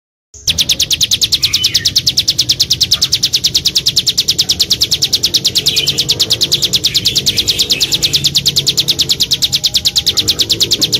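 Small songbird singing one long, even trill of sharp high notes, about ten a second, for some ten seconds, starting and stopping abruptly.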